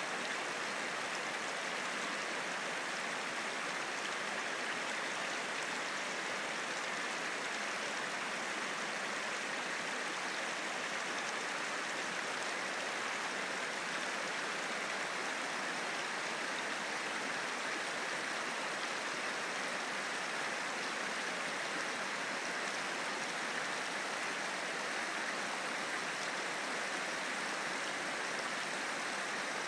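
Shallow river rushing over rocks in small rapids: a steady, even rush of water with no breaks.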